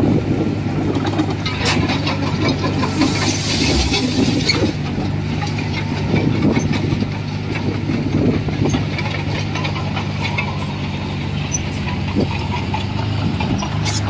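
Komatsu bulldozer's diesel engine running steadily, with irregular knocks and clanks over it.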